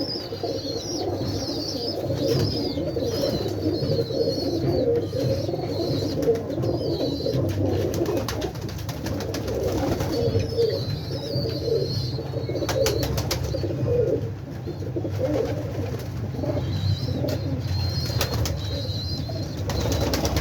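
Many pigeons cooing together in a steady, overlapping murmur, with higher twittering chirps above them. A few sharp clicks come in the middle and again near the end.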